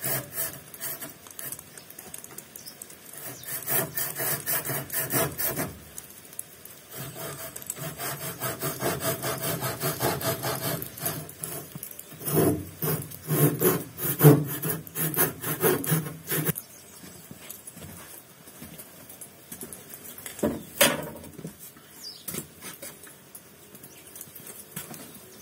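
Rapid, repeated rubbing or scraping strokes in three runs of about four seconds each, followed by a few separate sharp knocks.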